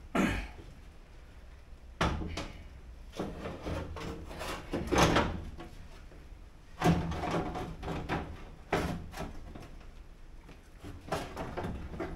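Separate knocks, clunks and scrapes of parts being handled and fitted in the bare steel driver's door of a Toyota Corolla KE20, several seconds apart, as the window glass and its mechanism are worked into place.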